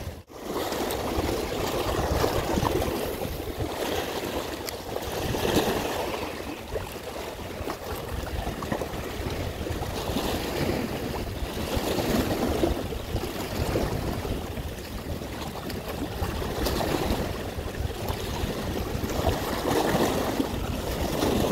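Small sea waves washing and splashing against the rocks and concrete blocks of a breakwater, surging and falling back every few seconds.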